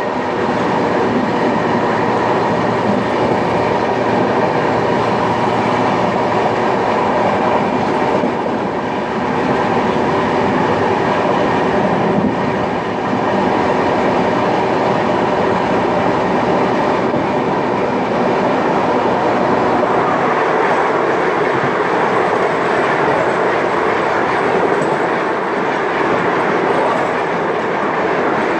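Dhauli Express passenger train running at speed, heard from an open coach door: a loud, steady rush of wheels on the rails.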